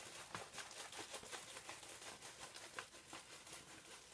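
Faint rustling and crinkling of a diamond painting canvas and its clear plastic cover being rolled backwards by hand, with a few light ticks.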